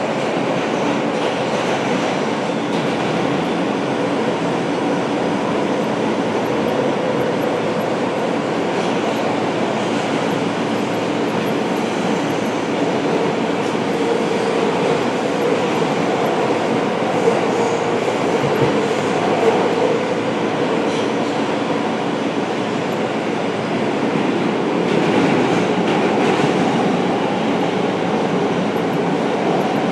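Steady running noise of a moving vehicle, with a faint steady hum beneath it and no pause throughout.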